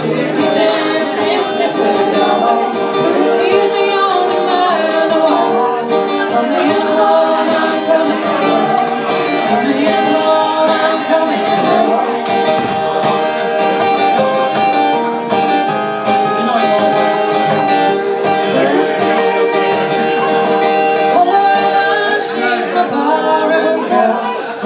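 Music from a band: guitar playing with singing, going on steadily.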